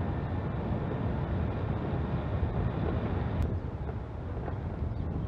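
Wind buffeting the microphone of a camera on a moving bicycle, with a steady low rumble of the tyres on the road, and one light tick about three and a half seconds in.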